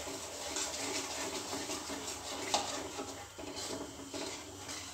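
Wooden spoon stirring and scraping a wet semolina halwa mixture in a steel pan: irregular scrapes, with a sharper knock about two and a half seconds in.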